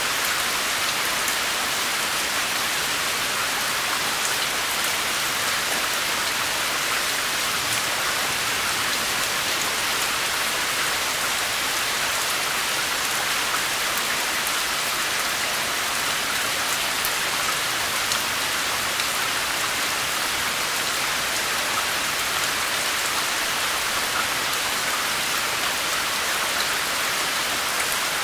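Steady rain falling on a surface, a dense even hiss with faint scattered drop ticks.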